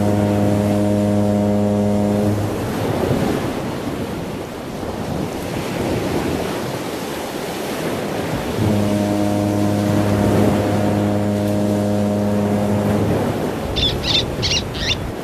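Deep foghorn sounding two long, steady blasts, one ending about two seconds in and the next lasting about four seconds, over the steady wash of ocean surf. Four short high-pitched cries near the end.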